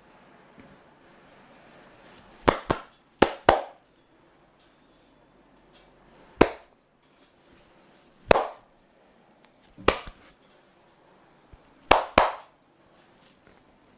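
Sharp slapping pops from percussive massage strokes, hands striking the body. There are about ten hits, singly and in quick pairs, a second or two apart.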